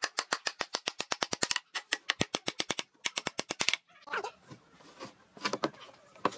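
Claw hammer driving nails into a pine board: three quick runs of sharp blows, about a dozen a second, stopping near four seconds. After that come softer, scattered sounds.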